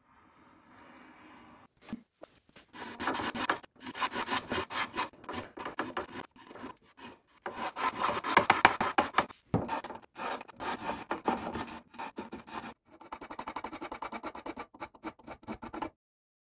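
Flat-bottom spokeshave shaving the edge of a walnut end-grain cutting board in repeated strokes. The strokes get shorter and quicker near the end and stop abruptly.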